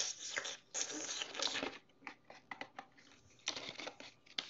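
Stacked potato crisps rustling and scraping inside a cardboard Pringles can as a hand fishes one out. The rustling comes in a few scratchy bursts with small clicks between them.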